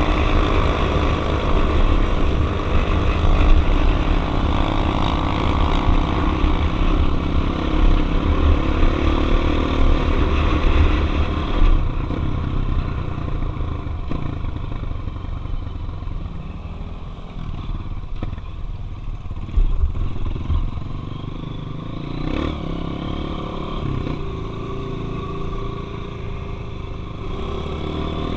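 Dirt bike engine running as the bike rides along a trail. It is louder for the first half, then eases off to a lower, steadier running sound, with a couple of sharp knocks in the second half.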